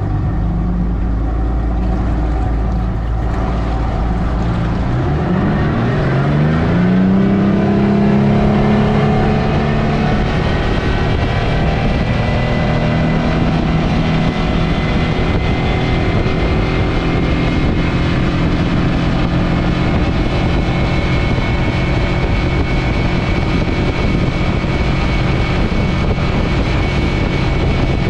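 Yamaha F225 V6 four-stroke outboard motor driving a boat. About four to seven seconds in its pitch climbs as it accelerates, then it holds a steady high-revving run near 5500 rpm at about 48 mph.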